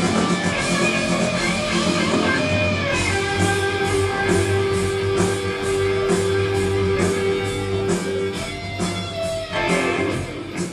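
Live heavy metal band playing an instrumental passage: electric guitar holds long lead notes over drums, with cymbals struck on a steady beat from about three seconds in.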